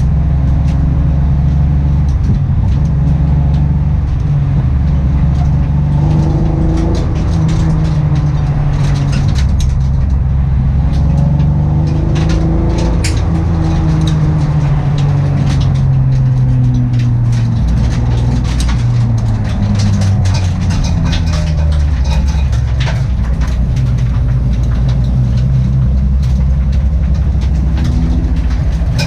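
A vehicle engine running with a misfire, its pitch slowly rising and falling, with scattered irregular clicks over the running sound.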